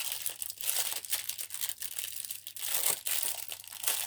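A packet crinkling and rustling in the hands as a small item is pulled out of it, an irregular run of crackles with no pauses.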